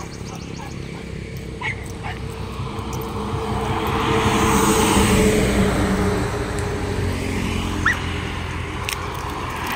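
Motor vehicle traffic passing on the adjacent highway: an engine and tyre noise swells to its loudest about halfway through and then fades, with a short high call near the end.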